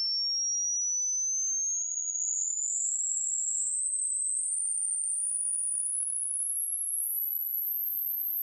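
Hearing-test tone: a single pure tone climbing in pitch, smoothly at first, then in small steps from about two seconds in, up to a very high pitch.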